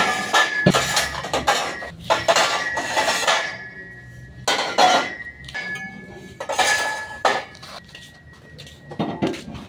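Metal objects clattering and clinking in several irregular bursts.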